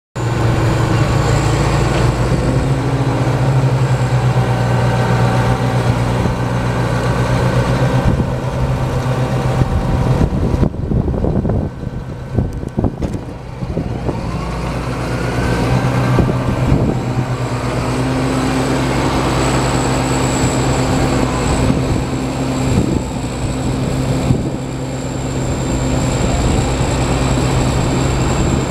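John Deere 8130 tractor's six-cylinder diesel engine idling steadily, with a thin high whine over it. The sound dips briefly about eleven seconds in.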